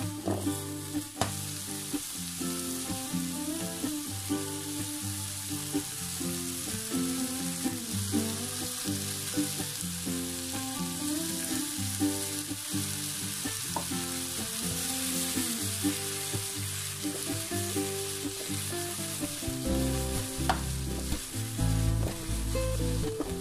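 Squash, onion, green beans and okra sizzling in hot oil in a frying pan, a steady hiss with a few small clicks. Background music of held notes plays underneath.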